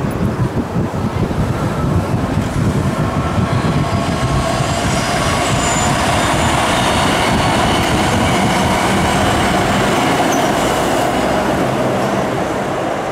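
Electric commuter train running past on elevated track: a steady rolling rumble with thin high whining tones over it, growing louder over the first few seconds and easing slightly near the end.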